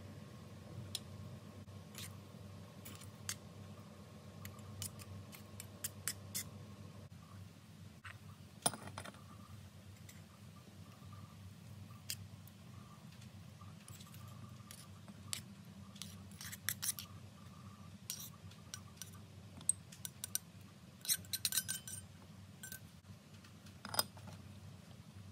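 Small metal spoon scraping and clinking against a miniature steel wok as rice is stirred in it, in scattered light clicks, over a steady low hum.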